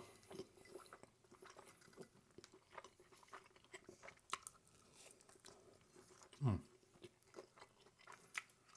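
Faint chewing and mouth clicks of a person eating a cheese quesadilla dipped in marinara sauce, with a short falling hum from the eater about six and a half seconds in.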